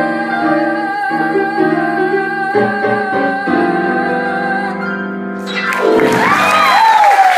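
Female singer holding a long high final note over grand piano chords; the song ends about five seconds in and applause breaks out, with whoops and cheers.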